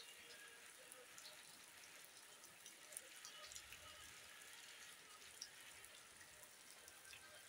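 Faint, steady rain falling, with many small scattered drop ticks.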